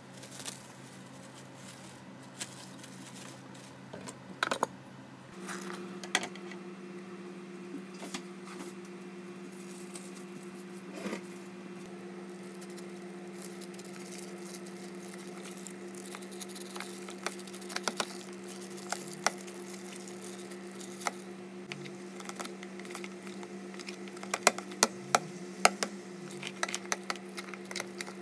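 Thin plastic bag crinkling and clear plastic tub being handled while dough is covered and worked: scattered small clicks and crackles, densest and loudest near the end. A steady low hum runs underneath and shifts in pitch about five seconds in.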